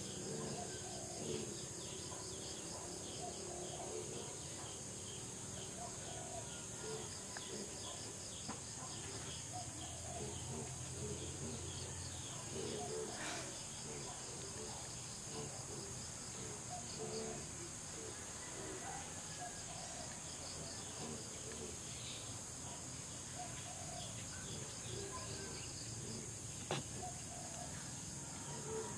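Steady, high-pitched insect chorus with crickets chirping in fast repeating pulses, and a single sharp tap near the end.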